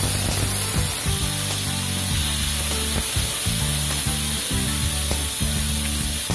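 Marinated chicken wings sizzling in hot oil in a frying pan, a steady hiss, as they are moved about with a wooden spatula.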